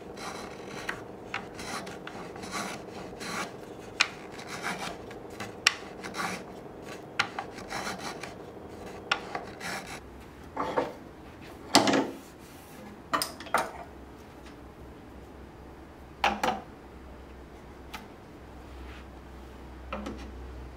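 Sandpaper on a small wooden block rubbed by hand along the edge of a walnut tray frame: a quick run of short sanding strokes, with a few louder, longer strokes after the middle.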